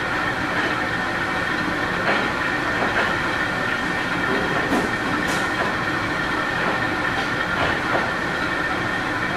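Steady background room noise with a constant hum, and a few faint scattered clicks.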